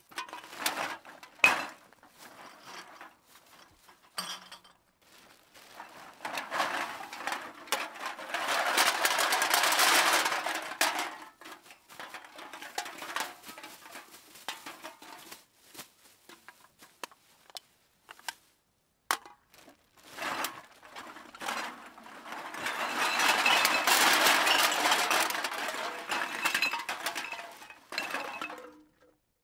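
A bag of cans being dumped out, the cans clattering and clanking against each other and the floor. Two long dense pours of rattling cans, one about a quarter of the way in and one near the end, with scattered single clanks and knocks between and before them.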